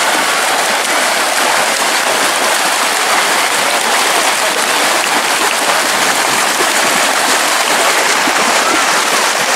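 Steady, dense splashing of a pack of swimmers churning the water with front crawl.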